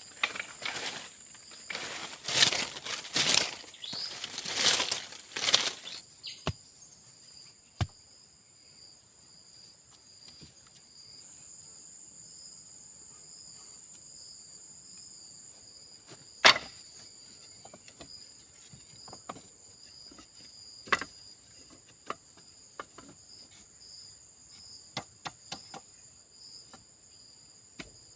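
Insects chirring steadily at a high pitch. Loud rustling and crinkling fill the first six seconds, then a scattering of sharp knocks and clicks follows, the loudest about halfway through.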